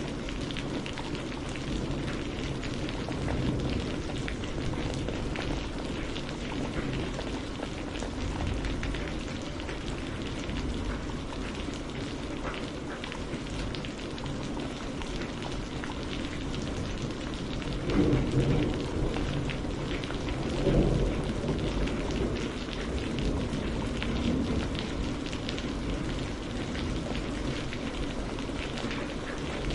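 Steady rain falling on a surface, a dense patter of drops. There are two brief, louder low swells a little past halfway.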